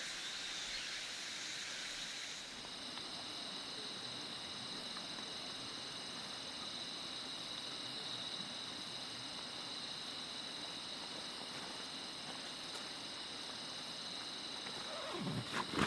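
Steady chorus of night insects, crickets or similar, trilling on a few constant high pitches. Near the end a louder animal sound, a dog by its whimpering, begins.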